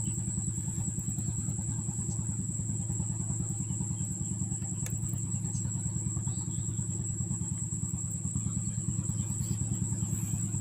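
A small engine running steadily at a constant speed, with a fast, even low beat. A thin, steady high whine sits above it.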